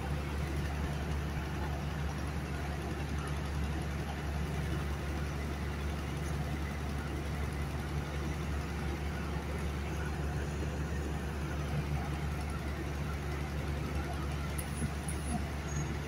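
Heavy diesel construction machinery running steadily at constant speed: a deep, even engine hum.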